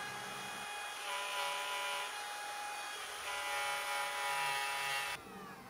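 Electric router on a circle-cutting jig running with a steady whine as it cuts the outer edge of a round wooden piece, getting louder about a second in and again past three seconds as it takes the cut. Near the end it drops in level and its pitch falls.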